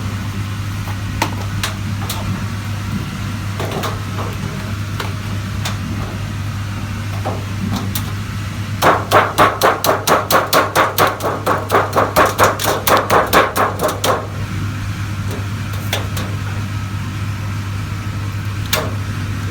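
Rapid hammering, about four even strikes a second for some five seconds in the middle, over a steady low hum, with a few scattered clicks and knocks before and after.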